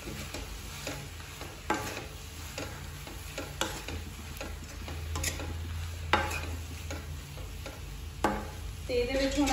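Vegetables being stirred and scraped around a kadhai with a spatula, sizzling lightly in the hot pan, with occasional sharp clinks of the spatula against the pan.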